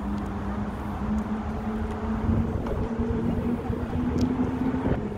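A steady motor hum, most likely from a vehicle engine, with wind rumbling on the phone's microphone.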